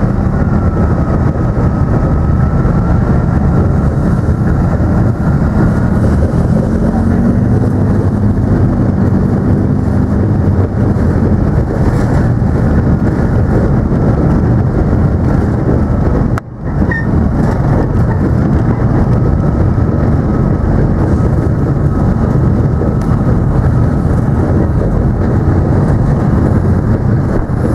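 Loud, steady running of a Leopard 2 tank's diesel engine and tracks, heard from inside the vehicle, with a thin whine above the rumble. The sound drops out for a moment just past halfway.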